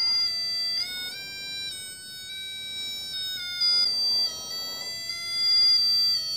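MS6818 cable locator receiver's buzzer sounding a continuous electronic tone whose pitch steps up and down as the received signal changes; the higher the tone, the closer the receiver is to the traced wire.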